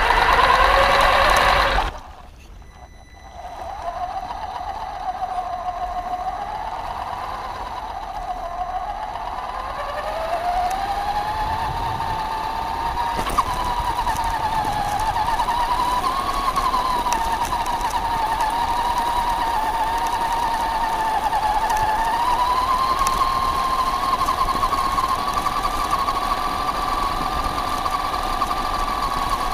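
Onboard sound of a Traxxas Stampede 4x4 RC car: about two seconds of loud splashing through shallow water, cut off sharply. Then its electric motor and gears whine steadily, the pitch wandering up and down with the throttle and rising a little about three quarters of the way through, over the crunch of tyres on gravel.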